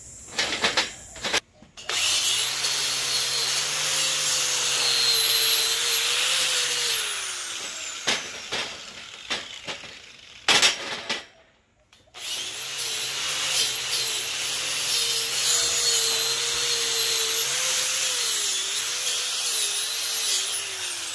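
Angle grinder running on a welded square-tube steel frame in two long runs, its pitch wavering as it bears on the metal and falling away as it spins down after each, with sharp metal knocks in between.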